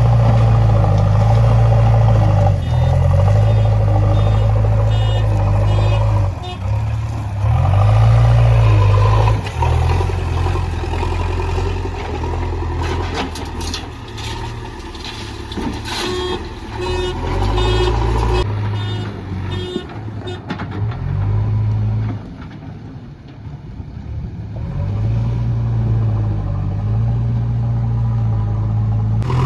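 Diesel engine of a JCB backhoe loader working, its revs rising and falling as it digs and loads. Knocks and clatter come from the bucket in the middle stretch, and a reversing alarm beeps in short runs.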